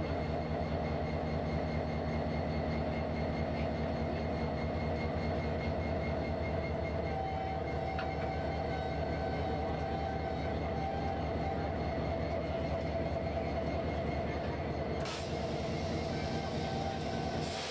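Diesel locomotive engine running steadily next to the Big Boy's tender, a constant low drone with a steady hum above it. Two brief bursts of noise come near the end.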